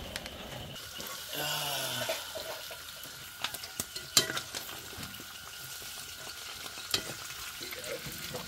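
Chicken frying in hot oil in a pan, sizzling steadily, while a spatula stirs it, scraping and knocking against the pan a few times, loudest about four seconds in and again near seven seconds.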